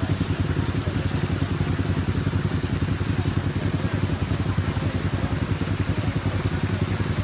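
An engine idling steadily: a low, even hum with a fast, regular pulse, over a steady hiss.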